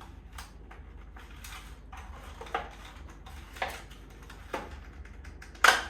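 Handling of a tray of eggs and its packaging: rustling with a few sharp knocks and clicks, the loudest near the end, as the eggs are checked for cracks.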